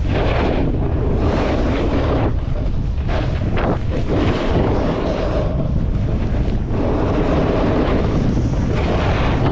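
Wind buffeting an action camera's microphone: a loud, steady low rumble with a rushing hiss that swells and dips.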